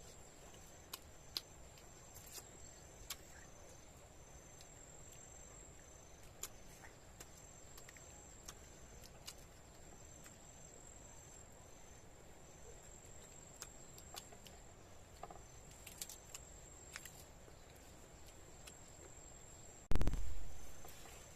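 Insects chirping in the background, a steady high trill with a regular pulse about three times a second. Over it come scattered small clicks and taps, and a loud thump near the end.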